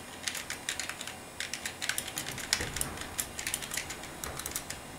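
Typing on a computer keyboard: quick runs of key clicks with short pauses, stopping shortly before the end.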